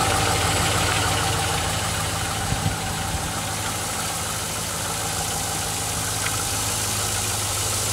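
2005 Chevrolet Silverado's 5.3-litre V8 idling steadily after a cold start, with the light knock of piston slap, the known fault of GM's 5.3 engines.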